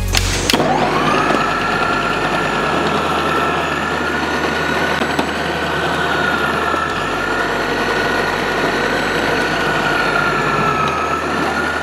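Vidiem Tusker mixer grinder's motor spinning up about half a second in and running at a steady high whine, driving the food processor slicing disc as a raw green banana is pressed down the feed tube and cut into thin slices. The whine dips slightly a few times under the load of the cutting.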